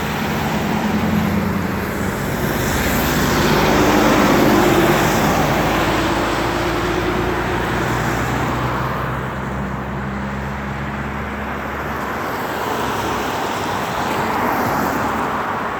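Road traffic passing on a rain-wet road: engines running and tyres hissing, with a louder vehicle going by about four to five seconds in.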